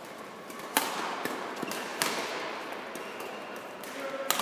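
Badminton rackets striking a shuttlecock during a rally: three sharp smacks, the first and loudest under a second in, another about two seconds in and one near the end, with fainter taps between, over a steady murmur of the hall.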